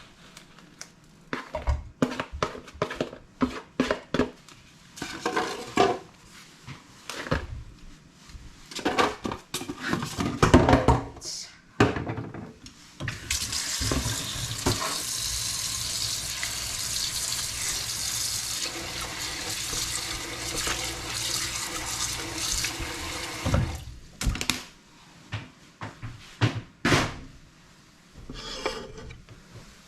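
A kitchen tap runs water into a sink for about ten seconds in the middle, with a steady hiss. Before it comes a run of knocks and clatters from kitchenware being handled, and more follow after the water stops.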